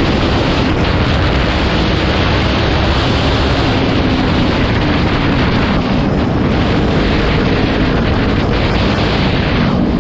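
Steady wind rush on the microphone at riding speed, over the Kawasaki Ninja 400's parallel-twin engine running underneath.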